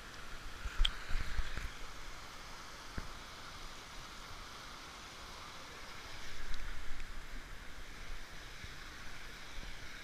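Stream water rushing over rocks in a small cascade, a steady hiss. Low rumbles and knocks on the camera microphone come about a second in and again around six seconds in.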